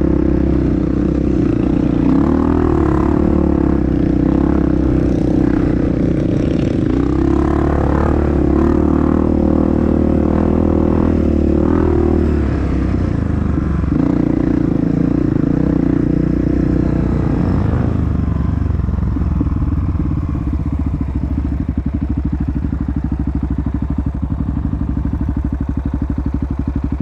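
Honda CRF dirt bike engine running at steady revs, easing briefly about halfway through, then settling to a lower, slower, even beat for the last third.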